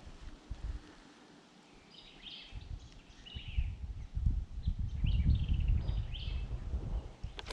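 Small birds chirping in short, repeated calls, some falling in pitch, starting about two seconds in. Under them a low rumble builds up from about a third of the way in and becomes the loudest sound.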